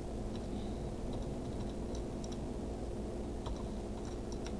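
Computer keyboard typing: a dozen or so soft, irregular keystrokes, over a steady low electrical hum.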